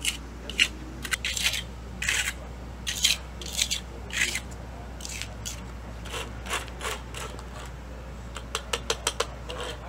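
A metal hand scraper scraping concrete pavement in short, repeated strokes, with a run of quicker, sharper strokes near the end.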